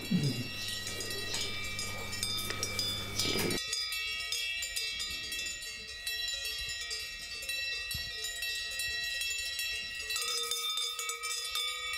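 Cowbells on grazing cattle ringing irregularly, several bells at different pitches; a low hum underlies the first few seconds.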